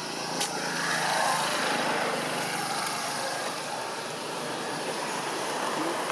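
A distant engine drone, swelling about a second in and then easing off, with a single sharp click near the start.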